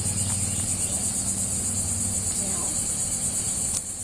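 Outdoor insect chorus: a steady, high-pitched buzzing trill. Under it runs a low steady hum, and a single sharp click sounds near the end.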